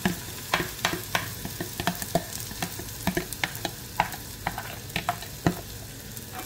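Egg and chopped-vegetable batter sizzling in ghee in a frying pan, with a utensil scraping and tapping in quick clicks as the batter is scraped from a plastic tub and spread across the pan. The clicks stop about five and a half seconds in, leaving the steady sizzle.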